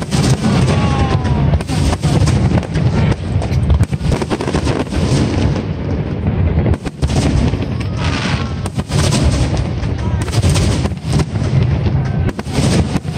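Aerial fireworks bursting in quick succession: a dense run of bangs and crackles over a continuous low rumble.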